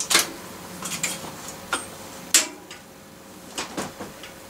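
Small metal tools and parts clinking and clicking as they are handled, a handful of sharp clicks with the loudest about two and a half seconds in.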